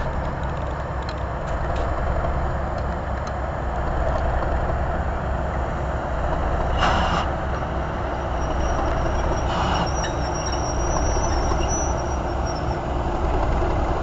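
Class 37 diesel locomotive with its English Electric V12 engine running as it passes hauling coaches, then the coaches rolling by on the rails, a steady loud rumble. Two short knocks about seven and ten seconds in, and a thin high squeal from about eight to thirteen seconds in.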